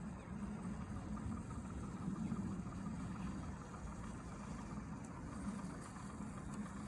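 Mini RC crawler's small electric motor and geared drivetrain running steadily as it crawls, a low, rough drone that wavers in level.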